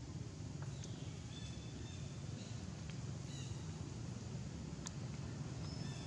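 Outdoor background: a steady low rumble with faint, short high chirps of birds several times and a few light ticks.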